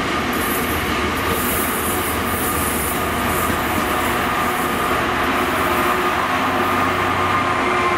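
A freight train's hopper wagons roll past on the rails with a steady ringing rumble and bursts of high wheel squeal in the first few seconds. A Class 66 diesel-electric locomotive approaches on the adjacent track, and its low engine hum grows in the second half.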